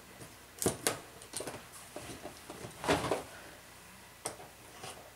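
Stanley knife cutting the tape seals on a cardboard kit box: a few sharp clicks and short scrapes, the longest about three seconds in.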